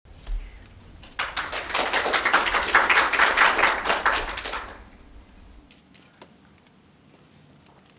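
Audience applause, a dense patter of many hands clapping, starting about a second in and dying away by about five seconds in. Only a few faint clicks follow.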